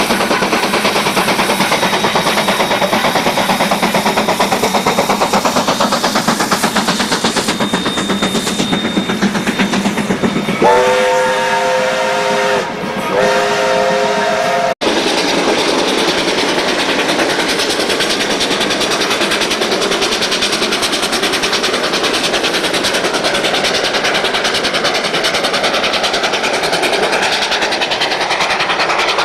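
Steam locomotive KA 945 working a passenger train past, with its carriages rolling on the rails as a steady noise. About ten seconds in it sounds two blasts on its steam whistle, a chord of several tones, and the second blast cuts off abruptly.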